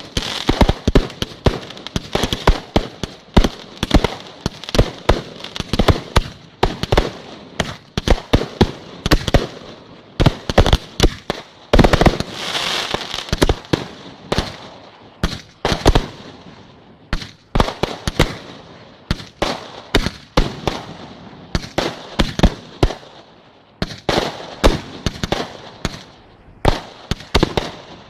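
Aerial fireworks display: a rapid, irregular volley of shell bursts and bangs, several a second, with crackling and hissing between them.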